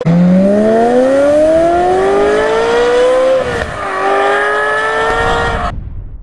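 A car engine accelerating hard, its pitch climbing steadily, dipping at a gear change about three and a half seconds in, then climbing again before cutting off abruptly near the end.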